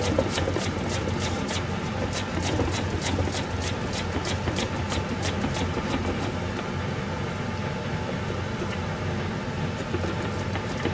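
A turnip being pushed back and forth across a mandoline slicer's blade, a quick rasping slice about three times a second, over a steady low hum.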